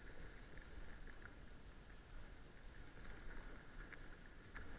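Mountain bike rolling along a gravel forest track, heard from a camera mounted on the bike: a steady low tyre rumble and wind on the microphone, with a few small rattling ticks.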